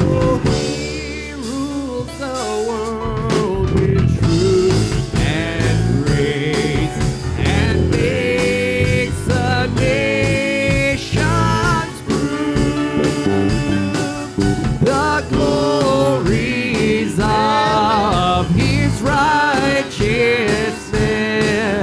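Live gospel praise music from a church band, with a voice singing over the instruments at times.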